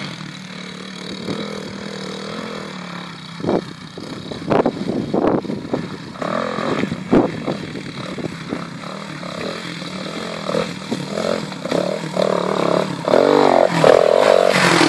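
AJP PR4 enduro bike's single-cylinder four-stroke engine revving up and down as it rides over rough moorland toward the listener, with a few sharp knocks and clatter from the bike bumping over the ground in the middle. It grows louder, loudest near the end as the bike passes close under hard revving.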